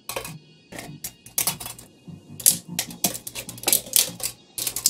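Plastic shrink-wrap on a small metal card tin crinkling and crackling as it is handled and pulled at, in irregular sharp crackles and clicks.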